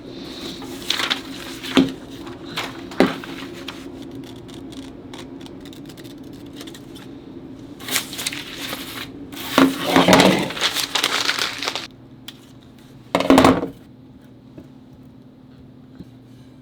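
Paper pattern being cut out and glued onto an old steel saw blade by hand: scattered paper rustling and crinkling with light clinks of metal and tools. The sounds come loudest in a stretch of rustling about ten seconds in and a short burst near the end, over a steady low hum.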